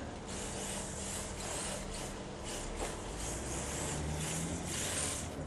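Radio-controlled drift car sliding on pavement: its tyres scrub and hiss in repeated surges, with a low steady hum underneath.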